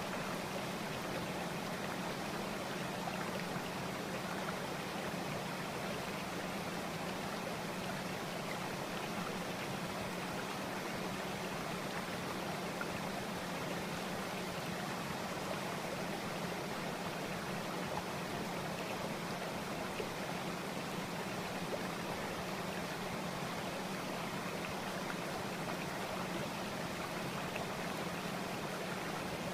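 Steady rushing noise like flowing stream water, even and unchanging throughout, with a slightly stronger low hum under it.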